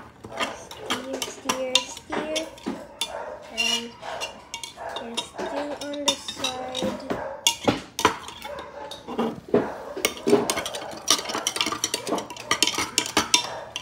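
Metal spoon stirring orange drink in a glass mug, clinking again and again against the glass in quick, irregular strokes.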